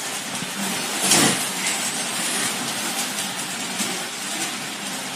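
A sharp knock about a second in, then a few light clicks, from hands working inside a kitchen base cabinet, over steady background noise.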